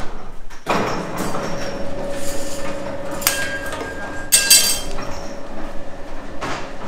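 Hard-candy-making work on a table: irregular knocks and clatter of tools and candy, with a bright metallic clink ringing about halfway through. A steady hum runs underneath.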